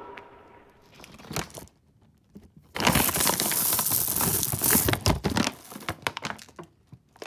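Plastic M&M's bag crinkling as a hand digs through the hard-shelled candies inside, the candies clicking against each other. It is faint at first, loudest for about two seconds from roughly three seconds in, then breaks into a few scattered rustles and clicks.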